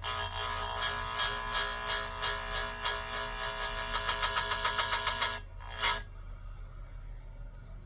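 Chainsaw chain being sharpened: a fast run of rhythmic strokes that speeds up, stops about five seconds in, and gives one last stroke a moment later.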